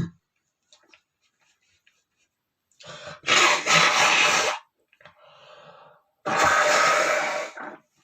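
A man's dust-allergy sneeze trails off at the very start. Then come his heavy breaths: two long, loud, noisy breaths about three and six seconds in, with a softer one between.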